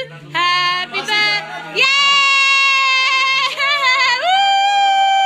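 A young child's high voice in long drawn-out notes, each held at a steady pitch, with a long high one rising in about four seconds in.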